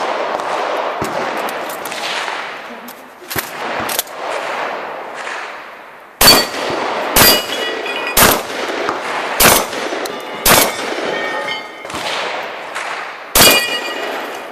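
Shotgun fired six times in quick succession at steel targets, about a shot a second with a longer pause before the last, each shot followed by the ring of struck steel plates. The first six seconds hold a steady rushing noise and two fainter cracks.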